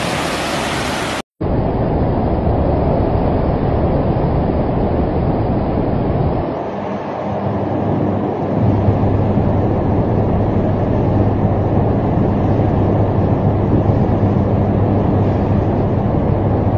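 Muddy floodwater rushing for about a second, then after a brief break a steady storm roar of wind buffeting a phone's microphone. A low steady hum joins in about halfway through.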